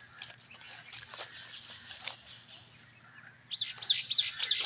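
Birds chirping in the surrounding trees, with one bird giving a loud run of about four quick, high arching notes near the end.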